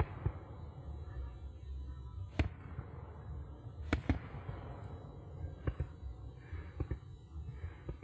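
Fireworks display: aerial shells bursting, with two sharp bangs about two and a half and four seconds in and a few smaller reports after, over a low steady rumble.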